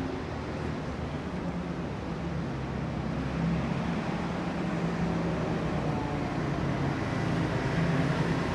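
City street ambience: a steady low hum of traffic and engines with a wash of background noise, growing slightly louder toward the end.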